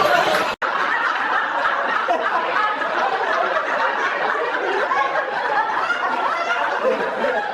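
A group of people laughing together, many voices overlapping in a dense, even mass that starts after a sudden break about half a second in.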